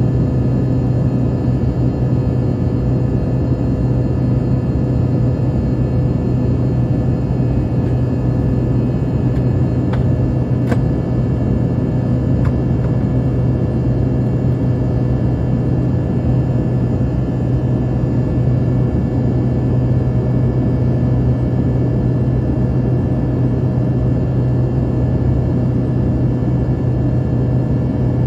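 Steady cabin drone of an Embraer ERJ-135 regional jet in flight, from its two rear-mounted Rolls-Royce AE 3007 turbofans and the airflow over the fuselage. It is a deep, even hum with faint steady whining tones above it, and two faint ticks about ten seconds in.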